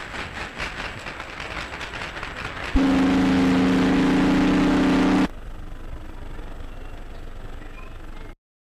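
An ocean liner's horn sounding one steady blast of about two and a half seconds in a low chord, starting and stopping abruptly. Old film-soundtrack hiss and crackle runs before and after the blast.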